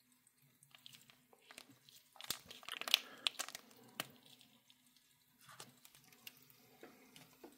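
MRE bacon cheese spread pouch crinkling as it is handled and squeezed out, in scattered bursts of crackling that are loudest two to three seconds in.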